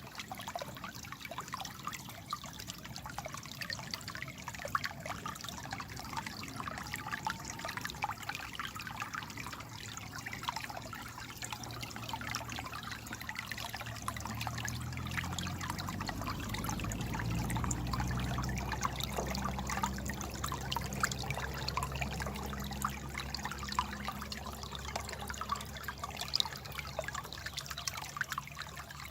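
Stream water trickling and babbling: a constant, dense patter of small splashes. Partway through, a low droning hum swells for several seconds and then fades again under the water.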